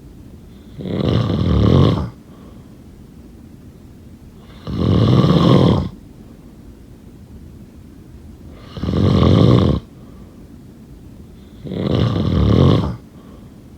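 Snoring in a steady rhythm: four rough snores of about a second each, one every three to four seconds, with quieter gaps between.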